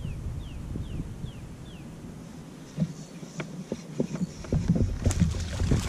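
Wind rumbling on the microphone, with a bird calling a quick run of short falling notes over the first two seconds. Then irregular clicks and knocks from the fishing rod and reel as a bass is hooked and fought from a kayak, with louder noisy bursts near the end.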